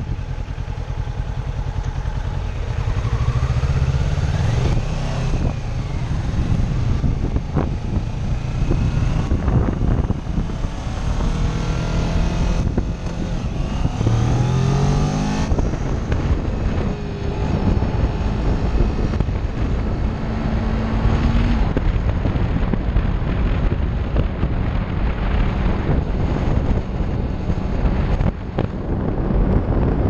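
Kawasaki Ninja sport bike's engine running under way, heard from the rider's seat, with the revs rising twice, a few seconds in and again around halfway. Wind rushes over the helmet-mounted microphone the whole time.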